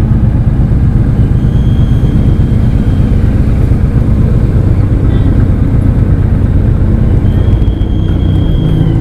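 Motorcycle running at steady revs: a loud, dense low rumble with steady engine tones underneath and no change in speed.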